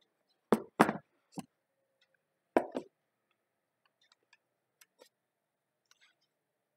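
Handling noise from unboxing an iPhone 11: sharp knocks and taps of the stiff cardboard box and its lid, bunched in the first three seconds, then a few faint clicks as the phone is lifted out and turned over.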